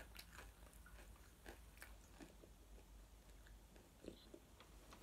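Very faint, scattered crunches of Doritos tortilla chips being chewed, otherwise near silence.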